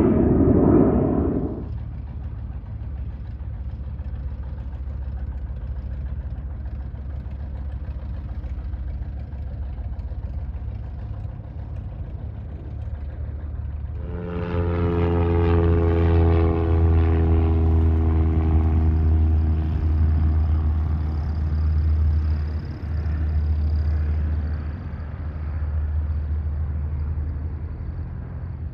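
Jet noise from a departing Embraer Phenom 300 fades out in the first second or two, leaving a quieter low rumble. About halfway through, a light single-engine piston airplane's engine and propeller come in as a steady drone with overtones as it taxis at low power.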